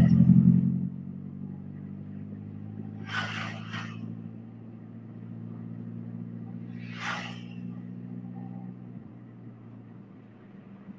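Car engine running at a steady cruise, heard from inside the cabin. An oncoming truck rushes past at the very start, the loudest sound, and shorter whooshes of passing traffic come about three and seven seconds in.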